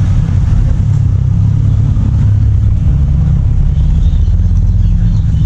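Steady low rumble of a moving motor vehicle: engine and road noise.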